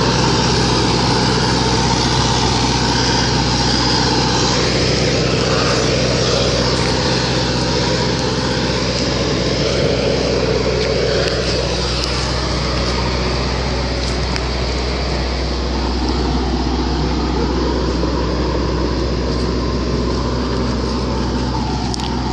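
Grégoire grape harvester's diesel engine running steadily and loudly at close range, with a dense mechanical hiss and rattle over the low engine note.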